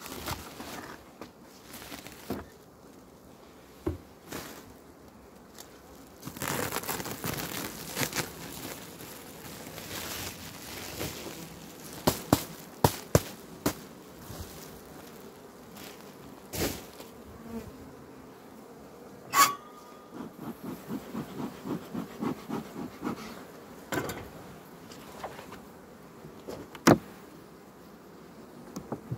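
Honeybees buzzing at an open hive, with sharp clicks and knocks of wooden hive parts and frames being handled; a quick run of small knocks comes about two-thirds of the way in.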